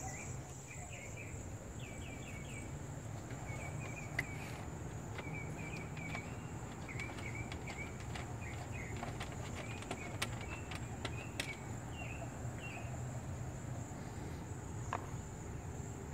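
Outdoor background of insects: a steady high-pitched drone with many short repeated chirps, over a low steady hum, with a few faint clicks.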